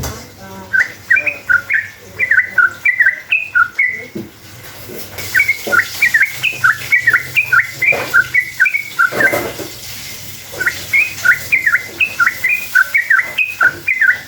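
Yellow-vented bulbul (trucuk) singing long runs of quick chattering notes that hop up and down, three or four a second. The song comes in three runs with brief breaks between them.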